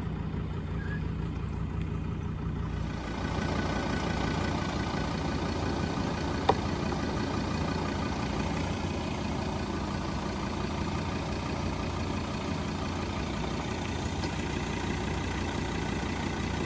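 ARB twin compressor, a 12-volt twin-piston air compressor, running steadily with a mechanical hum. It grows a little louder about three seconds in, and there is one sharp click about six and a half seconds in.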